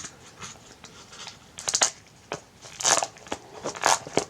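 Packaging wrap around a new tablet crinkling and rustling as it is handled and pulled off, in several short bursts, the loudest about three and four seconds in.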